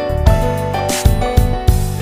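Background music: held melodic notes over a regular low beat.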